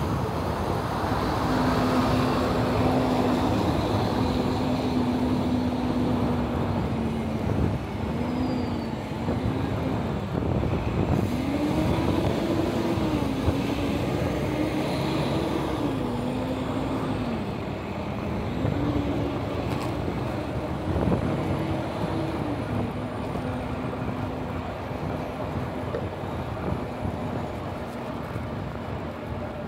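Road traffic noise with a nearby vehicle's engine hum repeatedly swinging up and down in pitch through most of it, then settling and fading near the end.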